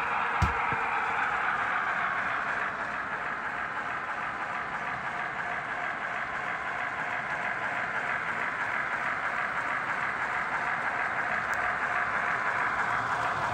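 Model train running: a pair of model Centipede diesel locomotives pulling a long string of freight cars, giving a steady whir and rattle of motors and wheels on the track. A single short knock about half a second in.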